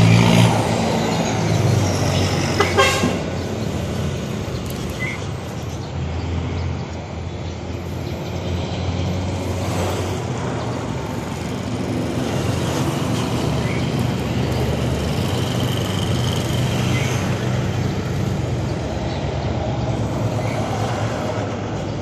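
Steady street traffic rumble, with a vehicle horn sounding near the start and a couple of sharp knocks about three seconds in.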